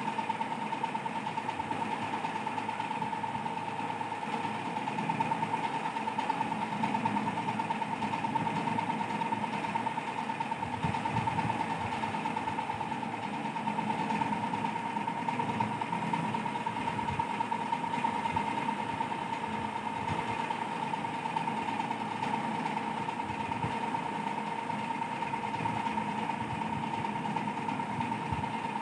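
A steady motor-like hum with a constant high whine, unchanging throughout.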